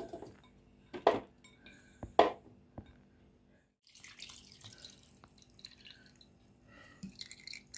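Strawberry pieces dropped into a plastic blender jar, with two knocks about a second apart. Then milk is poured in with a faint splashing trickle.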